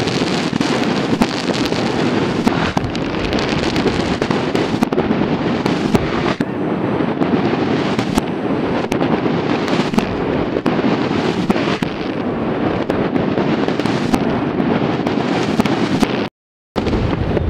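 Many fireworks going off at once: a steady din of overlapping crackles and bangs, with sharper single bangs standing out every second or so. The sound drops out for a moment near the end.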